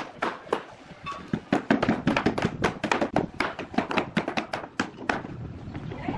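Hammer knocking on wooden formwork boards, a quick, uneven run of sharp knocks, several a second, with a short pause about a second in.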